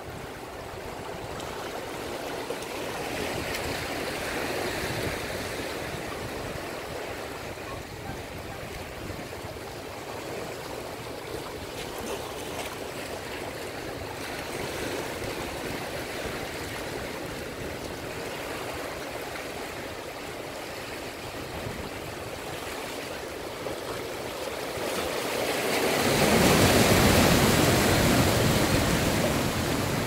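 Ocean surf washing through a rocky channel, a steady rush of churning water. A bigger wave surges in near the end, louder and deeper as it breaks against the rocks.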